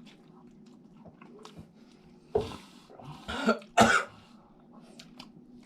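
A person coughing three times in quick succession in the middle of the stretch, the last cough the loudest, while speed-eating a burrito.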